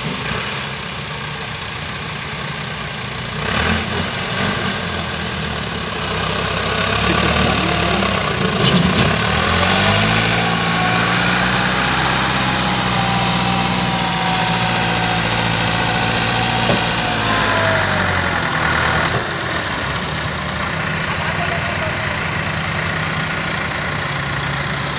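Tractor diesel engine running steadily. It revs up about a third of the way in, holds high under load for about ten seconds, then drops back, as the tractor strains to pull a loaded trolley stuck in mud.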